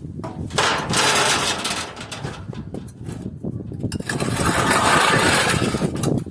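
A power tool running in two bursts of a couple of seconds each, the second longer and louder, during the dismantling of an old air-conditioning unit for scrap.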